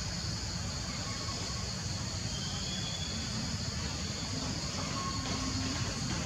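Forest ambience: a steady high-pitched insect drone over a constant low rumble, with a few faint, brief whistled notes.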